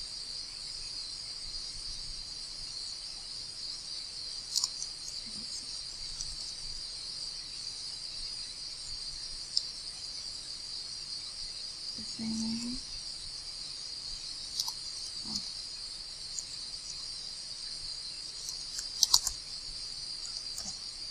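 Continuous high-pitched chorus of crickets, steady throughout. A few sharp clicks are scattered through it, with a quick cluster of them near the end.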